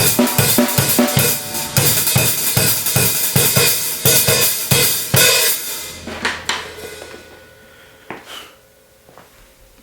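Drum kit groove played on Zildjian 14" K Mastersound hi-hats with snare and bass drum, stopping about five seconds in. A few single strikes follow and ring out as the sound fades.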